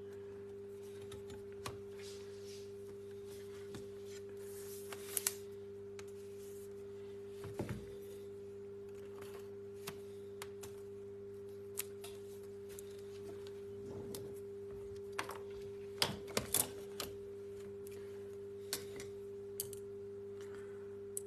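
Scattered small clicks and taps of plastic laptop parts and a screen cable being handled as the laptop's screen is refitted, over a faint steady electrical hum.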